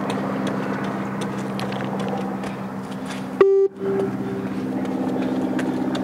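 Multi-stage fitness (bleep) test recording sounding a single short electronic beep about three and a half seconds in, echoing a few times as it fades, marking the end of a shuttle. Under it runs a steady low hum.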